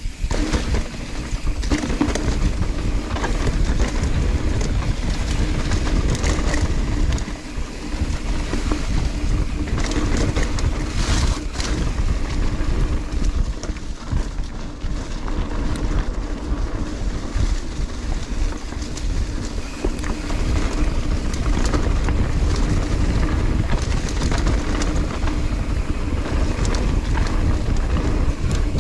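Transition mountain bike descending rough dirt singletrack: wind rushing over the action camera's microphone, tyres rolling over dirt and leaves, and the bike's chain and suspension rattling with many small knocks, with a louder clatter about eleven seconds in.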